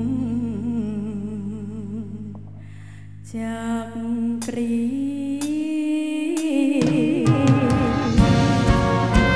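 Thai luk thung song performed live: a female singer holds a long note with vibrato over sustained band chords, the music thins out briefly about three seconds in, then a new phrase begins, and the full band with drums comes in for the last couple of seconds.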